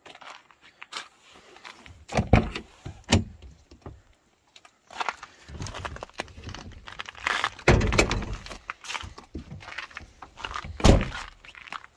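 Irregular knocks and thumps of a minivan's driver door being opened and handled, with fumbling inside the cab. The heaviest thumps come about two, three, eight and eleven seconds in.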